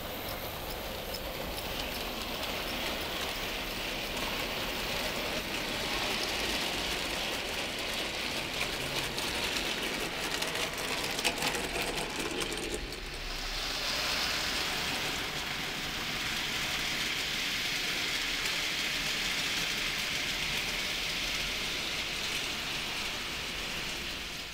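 00 gauge model freight train running on the track: a steady rattling hiss of small wheels on rail, with a run of sharp clicks over the track about ten to twelve seconds in.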